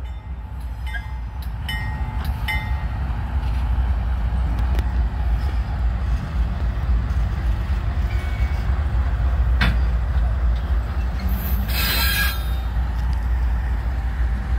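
Norfolk Southern AC44C6M-led diesel locomotives rolling slowly past, their engines giving a steady low rumble that builds over the first few seconds. A short burst of hiss comes about twelve seconds in.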